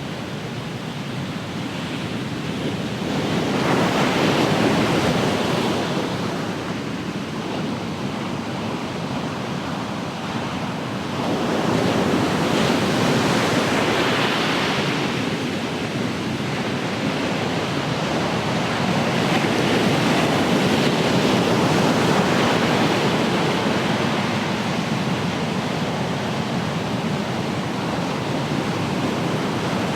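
Ocean waves breaking and washing onto the shore in a continuous rush. The surge swells about four seconds in and again around twelve seconds, then settles into a steadier wash.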